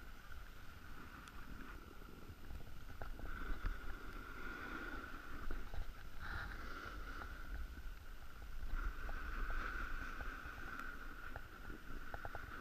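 Wind rumbling on the microphone of a camera carried down a ski slope, with a steady hiss from a snowboard sliding over the snow and a few faint clicks.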